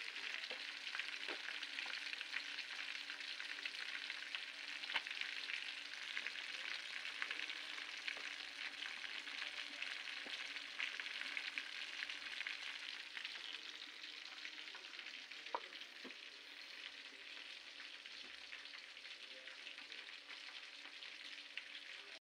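Fish pieces frying in a wok of bubbling oil: a steady sizzle with scattered crackles and a few louder pops, easing a little in the second half.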